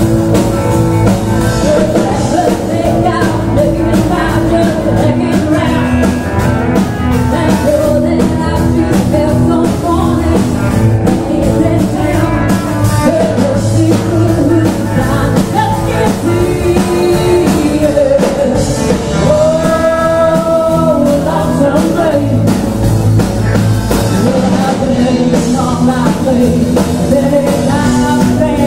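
Live band playing a rock-and-roll song: lead vocal over guitar, bass guitar and a drum kit.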